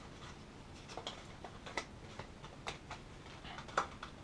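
Faint, irregular small clicks and light crinkles of paper packaging being handled and folded by gloved hands, with a few sharper ticks spaced about a second apart.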